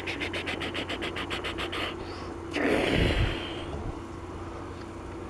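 Rapid, even clicking, about eight clicks a second, as the small plastic rotor of a diecast toy helicopter is turned by hand. It stops about two seconds in. Then comes a louder burst of handling noise with a low thump as the toy is moved about.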